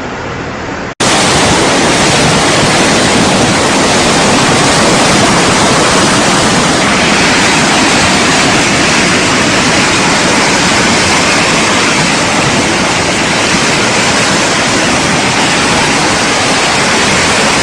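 Loud, steady rush of fast-flowing floodwater, starting abruptly about a second in.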